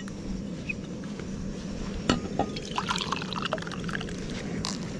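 Thick creamy liquid poured from a metal pan into an enamel mug, with splashing and small clinks and a sharp knock about two seconds in.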